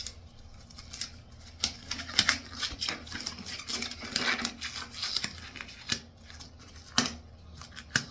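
Gloves being worked onto the hands: irregular rustling, stretching and sharp little snaps and clicks, the sharpest near the end.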